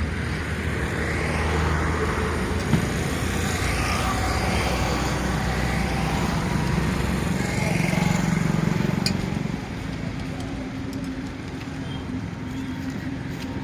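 A motorcycle engine running steadily, swelling a little around eight seconds and then settling lower, with one sharp click about three seconds in.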